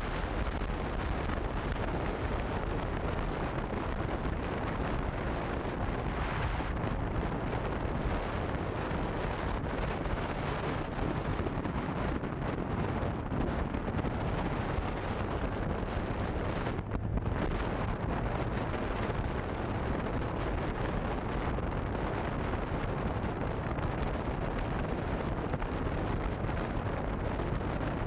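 Wind buffeting the microphone of a camera mounted on a moving Honda CB150F motorcycle: a steady low rushing noise with the bike's riding sound blended into it.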